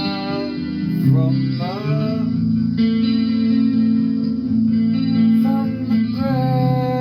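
A busker singing a Christian song to his own guitar, sliding up into some notes and holding long notes, with one long held note near the end.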